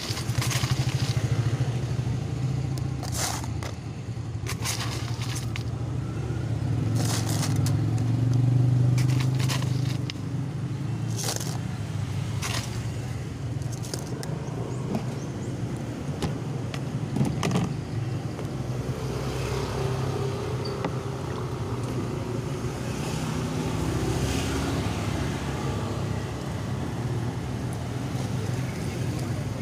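Crushed ice scooped and scraped into a plastic cup: a run of sharp scrapes and clinks over the first dozen seconds, with a few more later. Under it runs a steady low mechanical hum.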